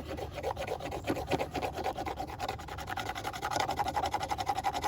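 The factory-rounded spine of a new stainless steel Mora Companion knife is rubbed back and forth over pine wood in quick, repeated strokes. The spine slides over the surface without scraping, because its rounded corners cannot bite.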